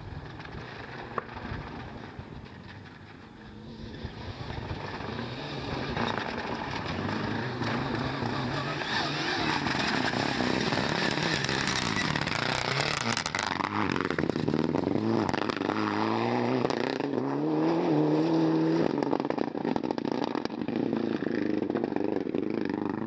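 Rally car at full throttle on a gravel stage. It grows louder as it approaches, with a loud rush of tyres and thrown gravel as it passes. In the second half the engine note climbs, drops and climbs again several times as it shifts up through the gears.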